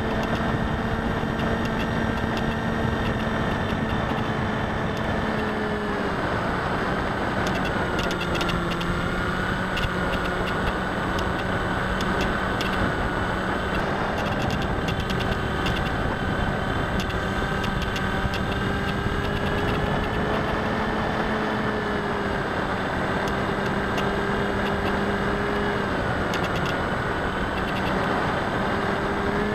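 Bixler RC plane's electric motor and pusher propeller droning steadily, recorded on board in flight. The pitch steps down about six seconds in and again near the end, and climbs back up around twenty seconds and at the very end.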